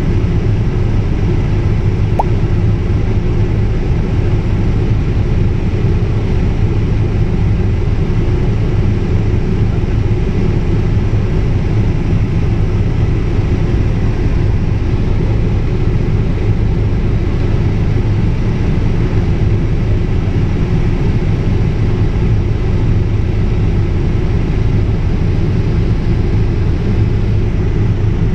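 Helicopter in flight heard from inside the cabin: a loud, steady drone of engine and rotor.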